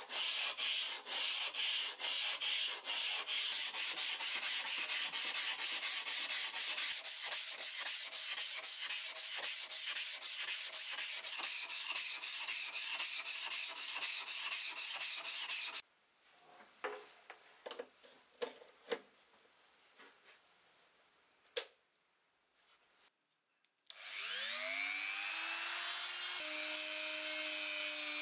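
Sandpaper in a hand sanding block scraping back and forth over the steel blade of an antique drawknife, in quick, even strokes for about sixteen seconds. A few light knocks follow. Near the end, a handheld rotary tool with a sanding drum spins up with a rising whine and then runs steadily.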